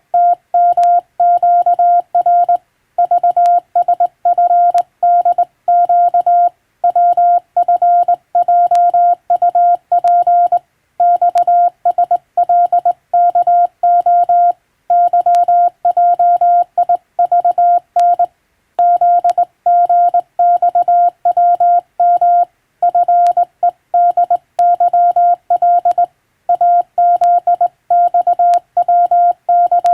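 Morse code sent with a telegraph key: a single steady beep switched on and off in quick dots and dashes, in letter groups broken by short pauses about every four seconds.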